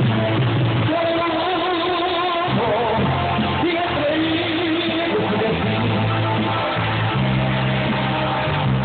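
Amplified live music with a man singing into a microphone in a wavering voice, over guitar and a steady bass line. The sound is cut off above the treble, as picked up by a phone.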